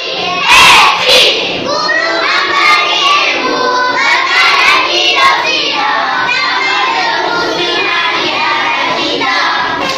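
A class of children singing together in unison, loud and a little rough, with a louder burst of voices just after the start.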